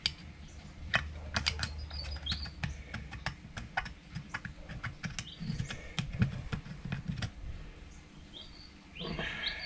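A pointed hand tool scraping and clicking against the inside of a motorcycle carburettor's float bowl, picking off hardened fuel varnish in short, irregular strokes. Faint bird chirps come through a couple of times.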